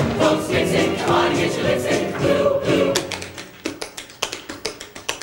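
A show choir singing in harmony with its live band. About three seconds in, the music drops away and leaves a run of crisp, sharp taps in an uneven rhythm.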